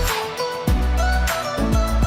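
Background music with a steady beat and deep bass under held melodic notes.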